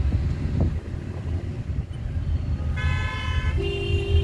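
Steady low rumble of a car's engine and road noise heard inside the cabin, with vehicle horns honking twice in quick succession near the end, the second blast with a lower tone beneath it.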